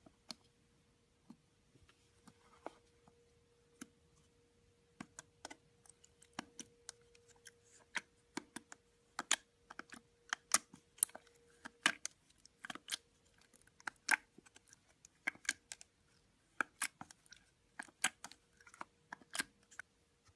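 Slime being squeezed and worked by hand, giving sharp, irregular clicking pops that come sparsely at first and grow denser and louder from about five seconds in, over a faint steady hum.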